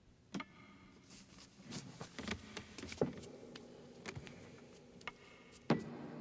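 A string of sharp clicks and knocks at irregular intervals, the loudest one near the end, over a faint steady hum.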